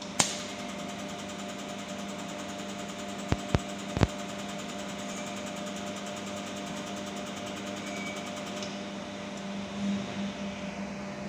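Steady hum of a YAG mould laser welding machine's running unit. A sharp click comes just after the start, then three quick clicks about three to four seconds in.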